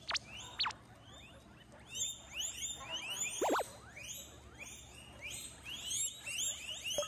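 Several guinea pigs wheeking: a few single sharp high squeals, then from about two seconds in a busy chorus of repeated high squeaky calls overlapping one another.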